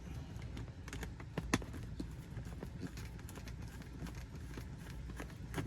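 Irregular small clicks and scrapes of a thin screwdriver working screws out of a plastic console-lid latch, with a couple of sharper clicks about a second and a half in and near the end.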